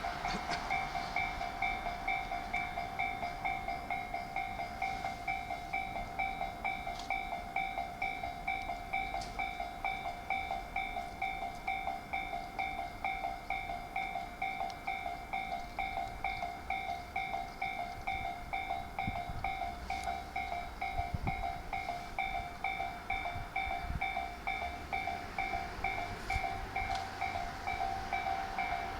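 Japanese railway level-crossing warning bell ringing in rapid, even electronic strokes, the signal that a train is approaching or passing the crossing.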